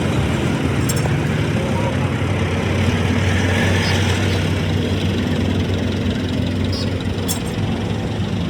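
A machine running steadily with a low, even hum, with a couple of faint clicks about a second in and near the end.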